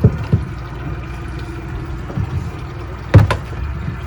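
Boat motor idling steadily, with short knocks near the start and a louder one about three seconds in.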